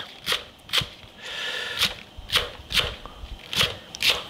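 A chef's knife slicing a leek on a wooden cutting board: about seven sharp knife strokes against the board at an uneven pace, with a short crunching rustle of the leek about a second in.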